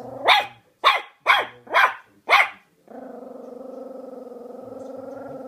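Angry Chihuahua barking five times in quick succession, then growling steadily.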